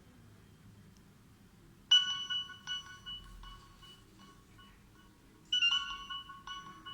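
Nokia 6020 mobile phone playing a ringtone through its built-in speaker: a short electronic melody of bright, sharply struck notes starting about two seconds in, a brief pause, then the melody starting again near the end.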